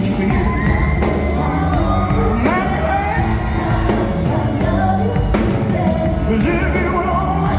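Live band with a male lead singer performing a slow soul ballad, the voice sliding up into held notes over the band.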